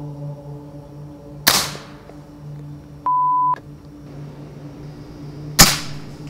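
Two shots from an AirForce air rifle, about four seconds apart, each a sharp crack with a short ringing tail; the second is the louder. Between them comes a short beep tone.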